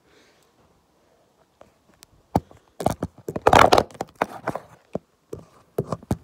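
Knocks, clicks and rustling of a phone being handled and moved close to its microphone, loudest in a scrubbing rustle about three and a half seconds in.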